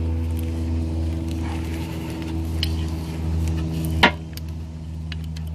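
A single sharp metallic clink about four seconds in, with a few faint ticks, from adjustable wrenches and a -6AN hose fitting being handled, over a steady low hum.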